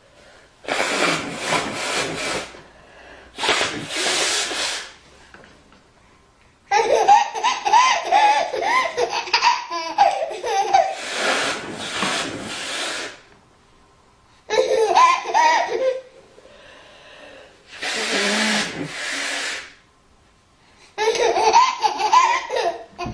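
A woman blowing her nose hard, about four times in long hissy blasts, and a baby breaking into bursts of belly laughter between them.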